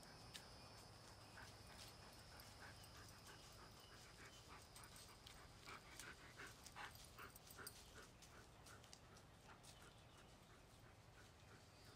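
A dog making a quick series of short, faint breathy sounds, about three a second, strongest in the middle and dying away after about eight seconds.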